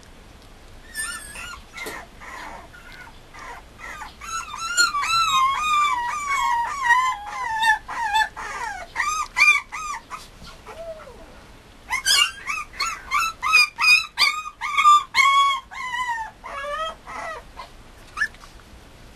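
Mame shiba puppy whining and whimpering in quick high-pitched cries that bend up and down, in two long bouts with a short pause between them.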